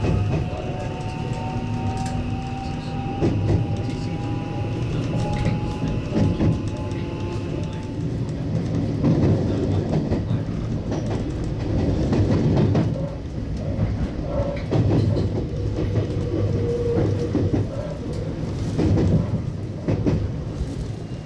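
JR West 521 series electric train pulling away and accelerating, heard from inside the front car: a motor whine rises slowly for the first several seconds over the running rumble. The wheels then clack over rail joints and points again and again as it gathers speed.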